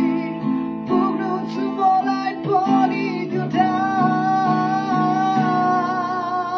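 A man singing loudly with passion while strumming an acoustic guitar. About halfway through he holds one long, wavering note over the steady strumming.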